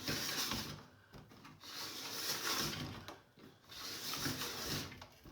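Ropepod's plastic spool housing being turned by hand to wind up its retraction spring: three turns, each a scraping noise about a second long with short pauses between.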